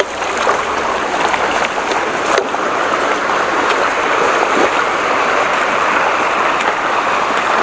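Shallow rocky river rushing steadily over stones, with a few light splashes from a cyclist wading through it and pushing a mountain bike.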